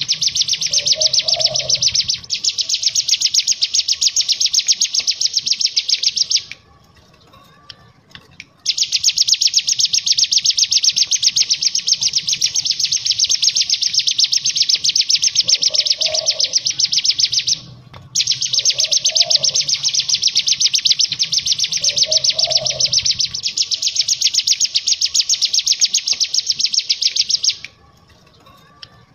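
Hill prinia (ciblek gunung) singing its rapid, continuous, high-pitched chattering trill ("ngebren") in long bouts. It breaks off briefly about two seconds in, pauses for about two seconds around seven seconds in and again near the end, and stops for a moment around eighteen seconds.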